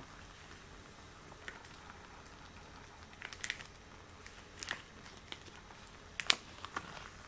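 Extra-long latex gloves being handled, giving irregular soft rubbery crinkles and clicks, with one sharper click about six seconds in.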